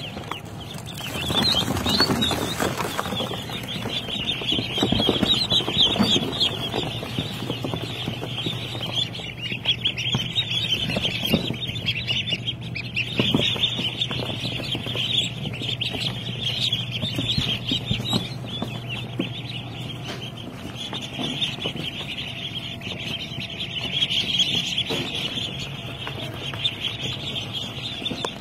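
A box full of ducklings peeping continuously, a dense high-pitched chatter of many overlapping calls.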